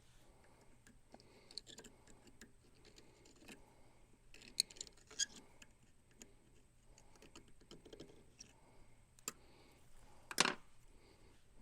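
Scattered light clicks and clinks of small metal parts being handled while an O-ring is swapped into a pressure washer fitting, with a sharper click about ten seconds in.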